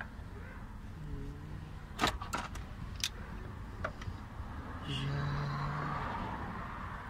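Pliers working a hose clamp on the fuel pump's hose, with a quick cluster of sharp metallic clicks and taps about two seconds in and another click near four seconds. Two brief low hums and steady background noise are also heard.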